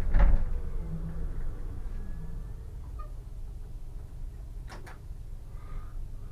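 Steady low hum and rumble inside a Solaris Tramino S105p tram's cab while it stands at a stop. There is a heavy thump right at the start and two sharp clicks about five seconds in.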